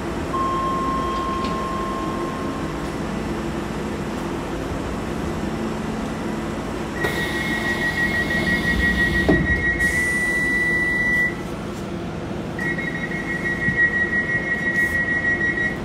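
Docklands Light Railway train standing at a platform with its steady hum of train equipment. About seven seconds in, the door-closing warning starts: a fast, high-pitched beeping that runs for about four seconds. It stops, then sounds again near the end as the doors shut.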